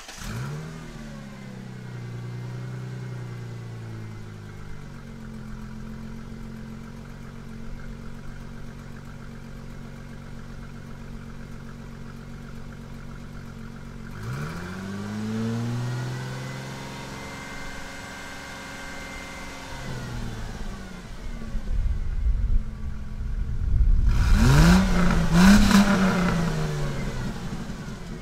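2002 Ford Mustang's 3.8-litre V6 heard at the tailpipe through the stock exhaust, which has a leaking passenger-side exhaust manifold. It idles fast just after start-up and settles. About halfway in the revs rise and are held for a few seconds. Near the end comes harder revving with two quick blips, the loudest part.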